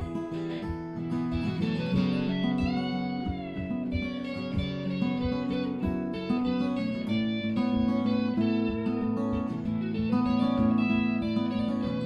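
Instrumental acoustic guitar duet: a capoed steel-string acoustic guitar picked steadily under a second guitar's lead line, with notes bent up and down in pitch about two to four seconds in.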